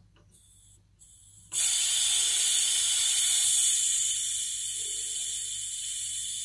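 Spunding valve on a pressurised Fermentasaurus fermenter venting gas with a steady hiss. The hiss starts suddenly about one and a half seconds in and eases slightly near the end, as the fermenter's pressure, just over one bar, is let down toward one bar.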